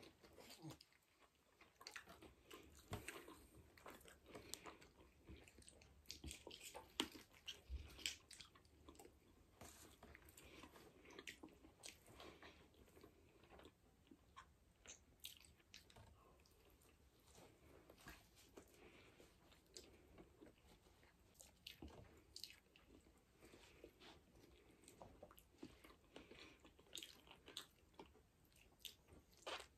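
A person biting and chewing chicken wings close to the microphone: quiet, irregular little clicks of bites and chewing mouth sounds throughout.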